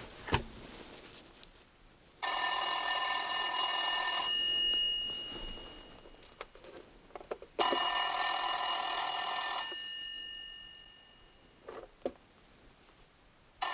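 The bell of an old rotary-dial telephone ringing: two rings of about two seconds each, a few seconds apart, and a third ring starting right at the end. A couple of short clicks from the handset being handled come just before the last ring.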